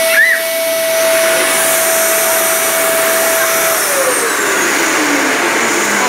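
A Simbo canister vacuum cleaner running steadily, its motor whine over a rush of air. About two-thirds of the way through, the whine falls steadily in pitch.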